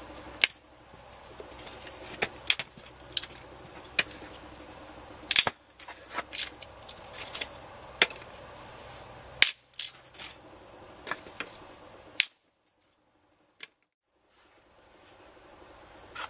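Dry sticks being snapped by hand: a series of sharp cracks, single and in quick clusters, over a steady low background. After about twelve seconds the sound drops to near silence for a couple of seconds.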